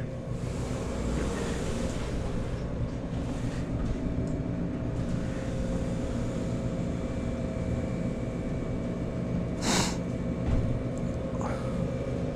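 Steady low mechanical hum and rumble with a few faint steady tones, with a brief rustle just under ten seconds in.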